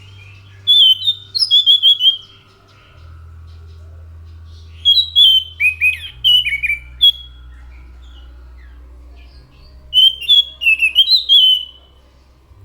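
Anis macan thrush singing three phrases of quick, clear whistled notes, each lasting a second or two, a few seconds apart, over a low steady hum.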